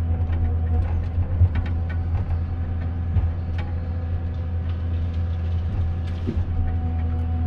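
Komatsu 931.1 forest harvester's diesel engine running steadily with a deep, even hum, with scattered short knocks and clicks from the machine working.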